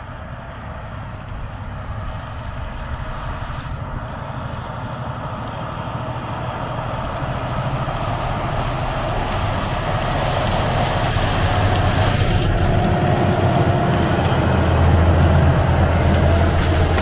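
Fendt 939 tractor pulling a strip-till rig through corn stubble: a steady engine hum that grows louder throughout as it approaches, loudest as it passes close by near the end.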